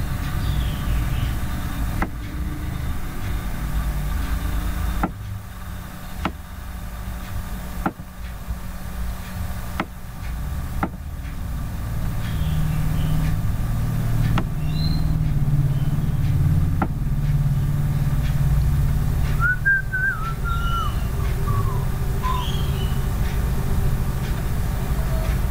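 Low rumble of passing road traffic that swells in the middle, with sharp clicks every few seconds and a few short high chirps near the end.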